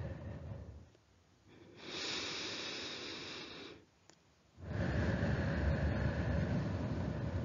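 A woman's slow, audible deep breathing, paced as a labour breathing exercise: breathe in for a count of two, out for a count of three. One breath fades out about a second in, a shorter hissing breath follows, and a longer, fuller breath out begins just under five seconds in.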